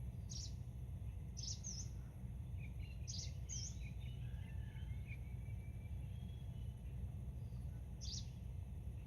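Small birds chirping: a handful of short, sharp high chirps spread out over several seconds, with a few fainter warbling notes among them, over a steady low rumble of outdoor ambience.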